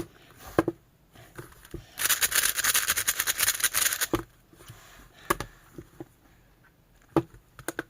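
A plastic 5x5 Rubik's cube being turned by hand: scattered single clicks of layer turns, with a run of rapid clacking turns about two seconds in that lasts about two seconds.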